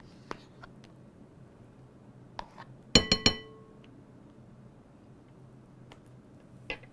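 A metal spoon strikes the rim of a glass mixing bowl three times in quick succession about three seconds in, giving ringing clinks as whipped topping is knocked off the spoon. Faint scrapes and ticks of the spoon working in the plastic tub come before and after.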